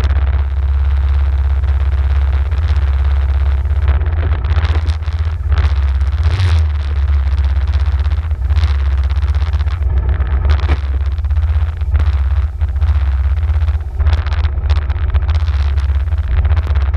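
Arctic Cat ATV engine running at low speed with a steady low drone as the quad creeps along a muddy track, with a few short knocks from the rough ground.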